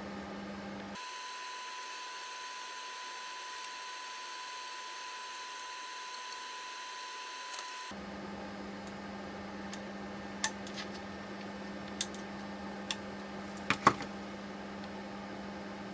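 Steady background hiss and hum with a few sharp clicks or taps in the second half, two close together near the end being the loudest. For a stretch early on the low hum drops out and a thin steady tone sounds instead.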